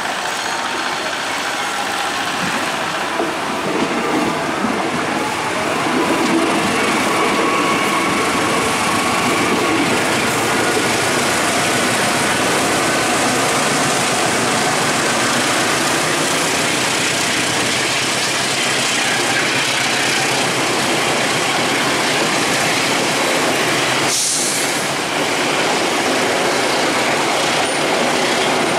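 A CC206 diesel-electric locomotive and its passenger coaches passing close by, with a steady rumble of wheels on the rails, clacking over the junction's joints and faint squealing tones in the first half. A brief sharp noise comes near the end.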